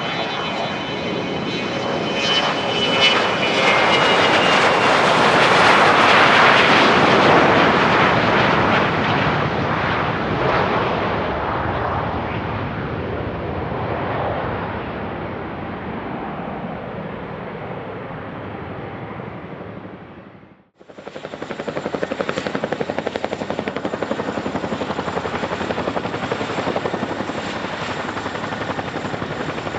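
Business jet's turbofan engines roaring with a high whine as the jet passes close, loudest about six seconds in, then fading away. About two-thirds through, the sound cuts off abruptly and is followed by a different steady aircraft engine noise with a thin high whine.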